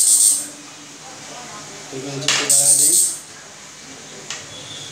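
Homemade electric fish-shocking inverter machine giving a loud, high-pitched hissing buzz under test. The buzz cuts off about half a second in and comes back briefly near the middle, over a low steady hum.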